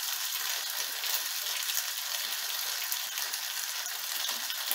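Flour dumplings sizzling steadily as they fry in a little olive oil in a small saucepan.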